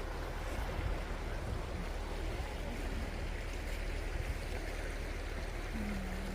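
Steady low rumble and road noise inside a moving tour vehicle.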